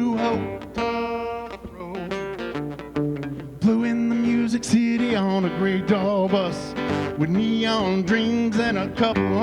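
A live country song on acoustic guitar, with a man singing long held notes over it.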